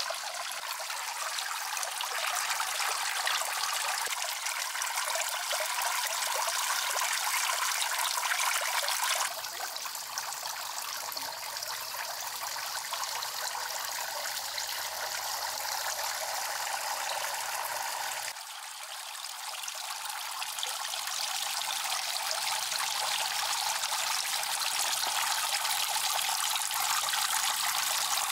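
Water pouring steadily from a pipe and trickling into a small pond. The level drops a little about nine seconds in and again about eighteen seconds in.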